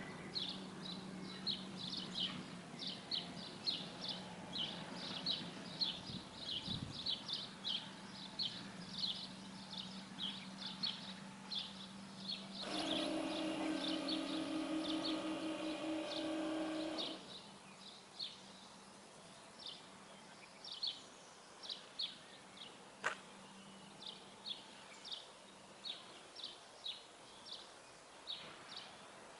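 A German railway level crossing's warning bell rings for about four and a half seconds, about halfway through, as the half-barriers lower: the signal that a train is coming. Birds chirp throughout, and a single click sounds a few seconds after the bell stops.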